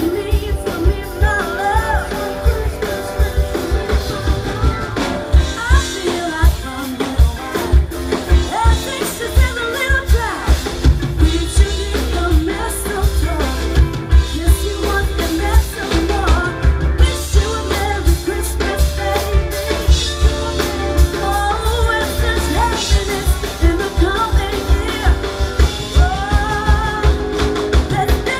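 Live band playing a rock song: a lead singer over a steady drum-kit beat, with guitar and keyboard, amplified through the stage's speakers.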